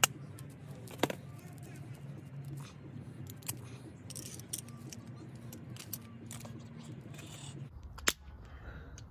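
Hammer tapping a screwdriver inside a steel socket to knock out a stuck nut: sharp metallic taps, the two loudest about a second in and near the end, with a few lighter taps and clicks between. A steady low hum runs underneath and changes shortly before the last tap.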